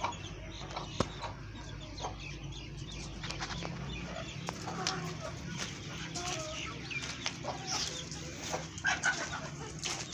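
Chickens clucking in short calls, with scattered sharp clicks among them.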